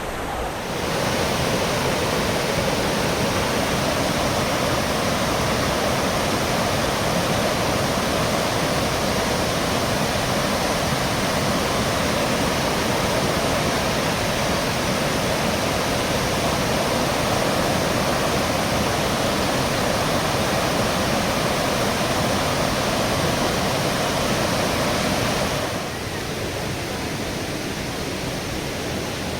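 Steady rush of water from the cascades of Kuang Si Falls. It grows louder about a second in and eases back a little near the end.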